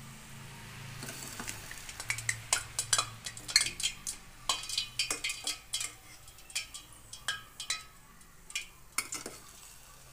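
Paal bun dough frying in hot oil in a steel kadai, sizzling and crackling, while a steel slotted spoon clinks and scrapes against the pan in many sharp, irregular ticks as the fried buns are lifted out.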